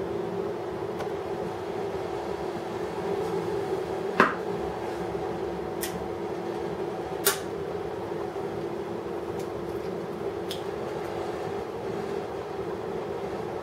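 HHO oxyhydrogen welding station running with a steady noise. Two sharp pops come about four and seven seconds in, with a few faint clicks between.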